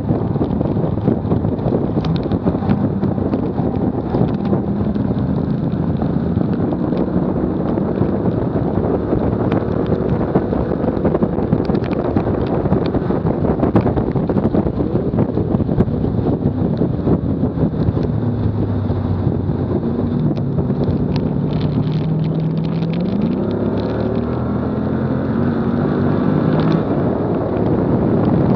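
Wind rushing over a car's front-bumper camera at 70 to 85 mph, with the car's engine note underneath rising and falling as it accelerates and slows. The engine pitch climbs steeply about 23 seconds in.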